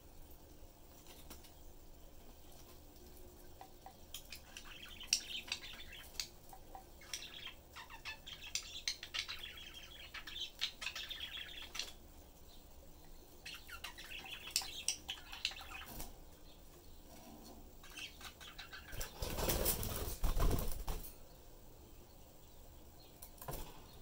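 Budgerigars chirping and chattering in short bursts, with scattered light clicks. About 19 seconds in, a loud flutter of wings lasting about two seconds as a budgie flies across the cage.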